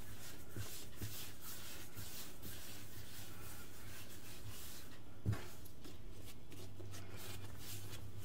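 Hands rolling and shaping a ball of bread dough on a floured worktop: faint, soft rubbing and scuffing, with one light knock about five seconds in, over a low steady hum.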